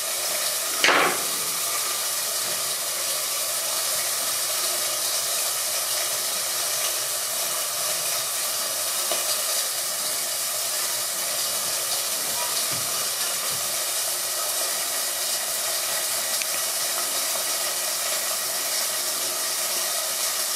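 Steady sizzling hiss of food cooking in a lidded pot on the stovetop. A short falling squeak comes about a second in.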